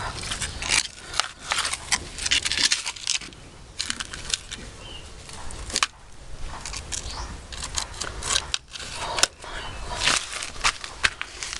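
A plastic sand-toy scoop scraping and scooping at the ground, a rough run of uneven scrapes and crackles.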